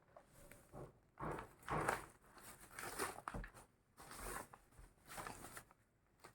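Faint, irregular rustling and handling noises in bursts, with a few light knocks, as things are moved about during the unboxing.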